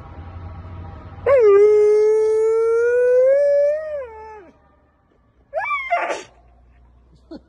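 A husky-type dog howling: one long held howl of about three seconds that rises slightly and drops off at the end, then a short rising yowl that breaks into a rough, noisy note.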